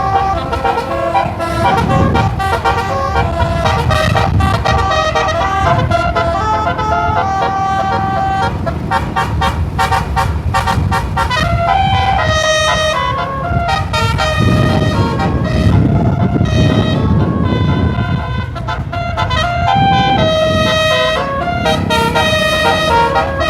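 Bus telolet (basuri) multi-tone horn playing a tune of quickly changing notes, over a bus engine and road rumble.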